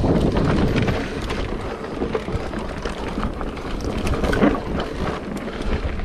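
Mountain bike rolling down a dirt singletrack: tyre noise over the trail with wind rushing on the microphone and frequent small rattles and clicks from the bike over bumps. A sharper knock comes about four and a half seconds in.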